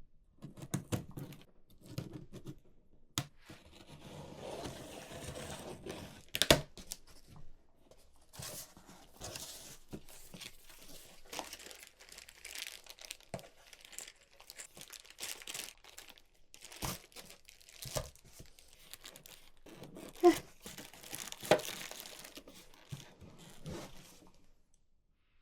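Cardboard box and plastic packaging of a sewing machine being torn open and crinkled by hand, with irregular rustles and scattered sharp knocks. The loudest knocks come about six seconds in and again around twenty seconds in.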